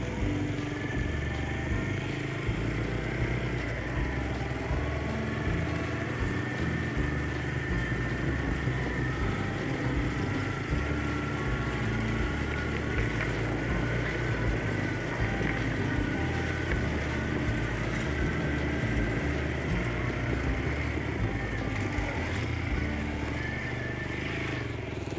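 Motorcycle engine running steadily while riding along at an even pace.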